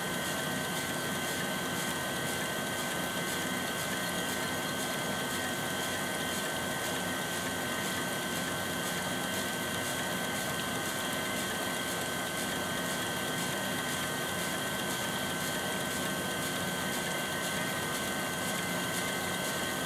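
Valley center-pivot irrigation system running, water spraying from its drop nozzles in a steady hiss, with a steady high-pitched tone over it.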